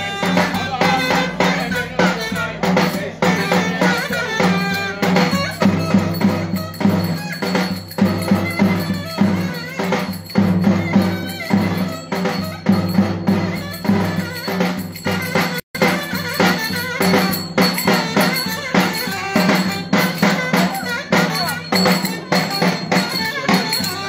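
Turkish folk dance tune played live on a davul drum with a melody instrument, the drum beating a steady, even rhythm under the tune. The sound cuts out for an instant about two-thirds of the way through.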